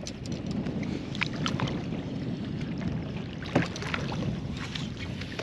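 Fishing kayak on the water: a steady low rustle of water and wind, with a few light knocks and clicks from the boat and gear at scattered moments.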